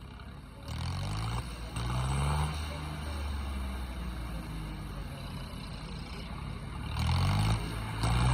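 Swaraj 855 tractor's diesel engine labouring under heavy load as it drags a weight down a dirt track. The revs climb about a second in, hold steady, then climb again near the end.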